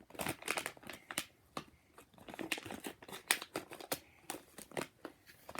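Packaging of a Cutetito stuffed toy crinkling and tearing as it is handled and opened, a run of irregular sharp crackles.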